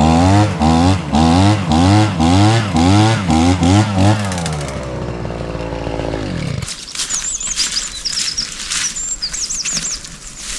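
Background music with a steady beat and repeated rising tones, fading out over the first six seconds or so. Then a small bird chirps rapidly and high-pitched for about three seconds outdoors.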